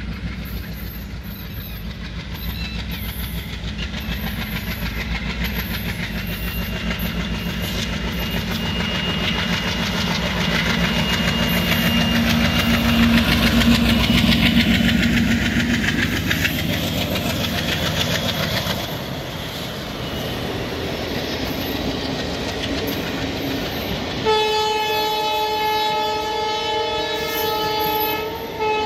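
Diesel locomotive approaching and passing at speed. Its engine rumble builds to a peak about halfway through, then the passenger coaches' wheels run by on the rails. About three quarters of the way in, a train horn starts suddenly and holds a steady chord.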